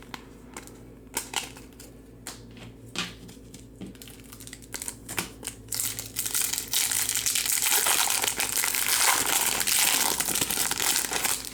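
A few scattered light taps and clicks, then from about six seconds in a steady crinkling as a Topps Chrome card pack's wrapper is torn open and handled.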